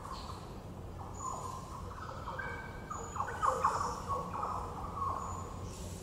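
Several small birds chirping and whistling in short, overlapping calls, busiest a little past halfway, over a steady low hum.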